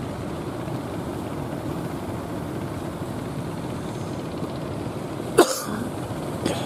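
Steady low hum of a wooden fishing boat's engine over the wash of the sea. About five seconds in comes a short, sharp, loud sound close by, and a fainter one about a second later.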